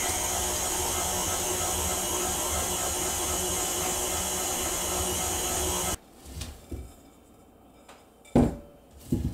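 Electric tilt-head stand mixer running steadily at speed, beating butter and sugar while flour is added, then switched off abruptly about six seconds in. After it stops, two sharp knocks come near the end.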